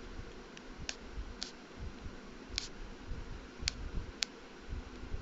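About five sharp, isolated clicks spaced irregularly, half a second to a second apart, over low, uneven bumping and rustling handling noise in a small room.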